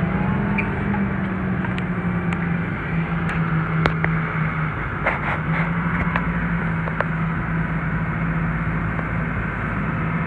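Tractor diesel engine running steadily under load while pulling a reversible mouldboard plough through the soil, with a few sharp metallic clicks in the first seven seconds.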